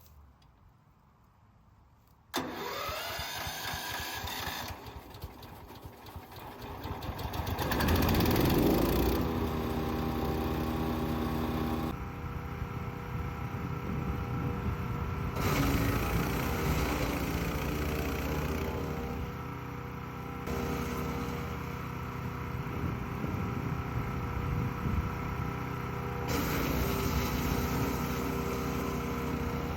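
Wood chipper's 15 HP 420cc single-cylinder OHV engine starting about two seconds in, climbing up to speed and then running steadily, its tone changing abruptly several times.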